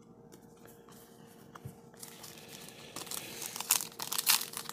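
Foil wrapper of a Topps Star Wars trading card pack crinkling and tearing as it is handled and ripped open. After a few faint clicks, the crackle starts about halfway through and grows louder toward the end.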